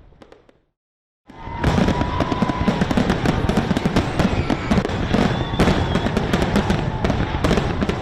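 Fireworks: the sound fades out into a brief silence, then a dense barrage of crackling and bangs starts about a second in and keeps going, with a short whistle as it begins.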